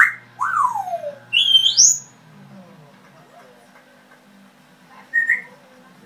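African grey parrots whistling: a rising whistle, a long falling whistle and a higher whistle that climbs in steps, all within the first two seconds, then one short whistle about five seconds in.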